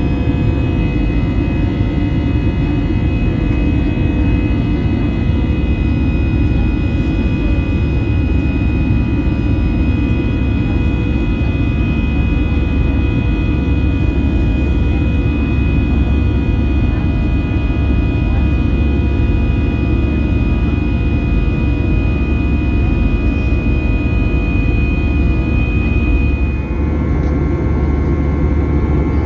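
Airbus A320 cabin noise during climb: a steady, loud rumble of the engines and airflow, with a steady high whine that stops near the end.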